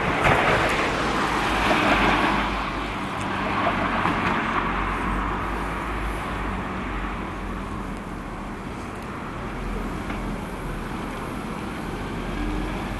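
A passing vehicle, loudest in the first couple of seconds and then slowly easing off, with a low rumble beneath.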